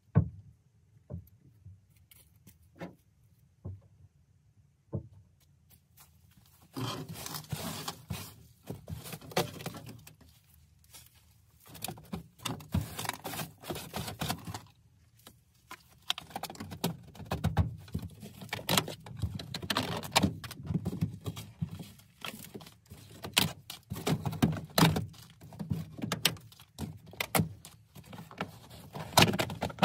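A sharp knock, then a few scattered clicks, then from about seven seconds in continuous rustling and scraping with frequent knocks, as old floor covering and debris are pulled out of a car's footwell.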